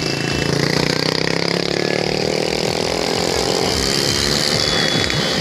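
Motor vehicle engine running and pulling, its pitch rising over the first couple of seconds, over a steady hiss of wind and road noise.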